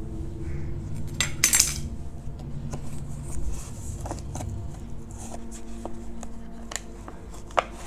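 Cardboard packaging of a boxed pair of wired earbuds being handled and opened. There is a short rip or scrape about a second and a half in, then scattered clicks and rustles as the inner tray slides out, with one sharp click near the end.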